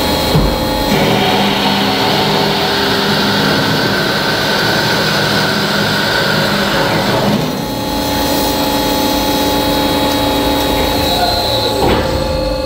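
330 DC CNC bandsaw cutting dry through a small steel round bar in its automatic cycle, blade and drive running steadily with a rasping cut sound. The cut ends about seven seconds in, and near the end there is a brief change in pitch as the machine moves on to the next piece.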